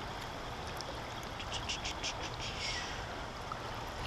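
A hooked carp splashing and thrashing at the water's surface, a few short sharp splashes and drips over a steady low rush of river water.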